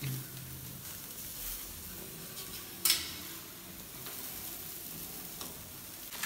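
Pieces of liver and heart sizzling over glowing charcoal on a wire grilling basket, being half-cooked before cutting. There is one sharp click about three seconds in.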